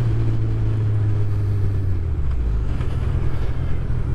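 Suzuki Hayabusa's inline-four engine running as the motorcycle is ridden, its note falling in pitch about halfway through.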